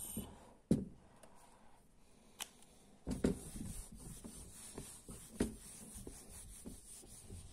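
Felt whiteboard eraser rubbing back and forth across a whiteboard, starting about three seconds in, a steady scrubbing hiss. A few sharp knocks come through, the loudest about a second in.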